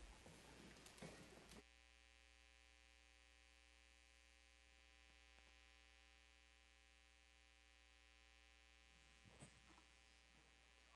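Near silence: a steady electrical hum, with faint room noise in the first second and a half and a couple of faint knocks about nine seconds in.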